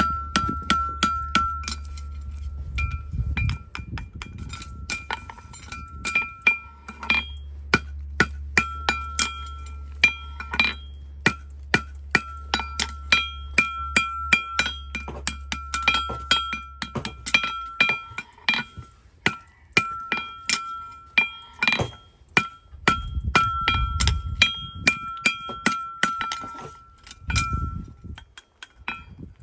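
Rapid sharp clinking taps on a hard object that rings at the same pitch after each strike, often several taps a second, with a low hum underneath for about the first two-thirds.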